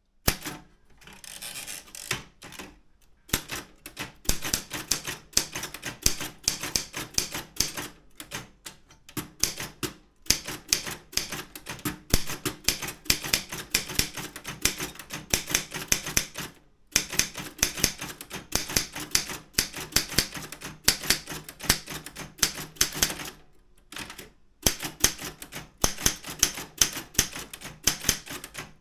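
Daro Optima M16 manual typewriter being typed on fast, a dense run of key strikes with brief pauses every several seconds.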